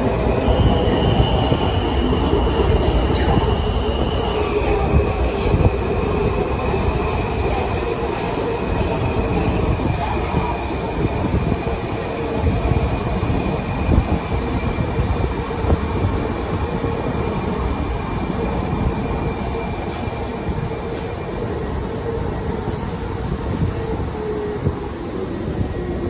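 Washington Metro train rolling in along the platform and slowing: a steady rumble of wheels on the rails, with a thin high squeal that steps down in pitch about four seconds in and dies away about three-quarters of the way through.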